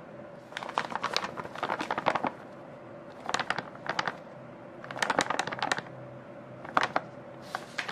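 Flour bag crinkling in about six short bursts of quick crackles as flour is shaken out of it into a glass mixing bowl.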